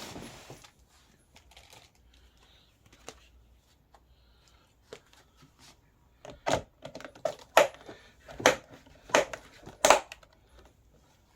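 Plastic hubcaps being pressed onto a kids' ride-on quad's plastic wheels: faint handling, then in the second half a run of sharp plastic knocks and clicks, the five loudest under a second apart, as the hubcaps snap into their slots.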